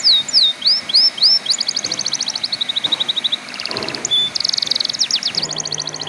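Domestic canary singing: fast trills of repeated notes alternating with sweeping whistled notes, phrase after phrase. A faint low hum joins near the end.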